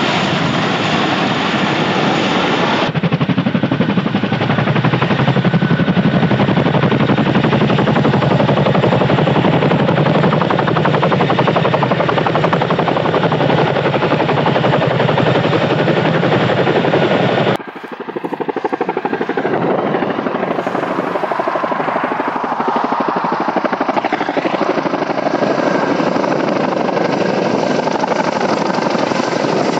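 Boeing CH-47F Chinook tandem-rotor helicopter flying close by, its rotor blades beating in a rapid, even chop. The sound changes abruptly about three seconds in and again about eighteen seconds in.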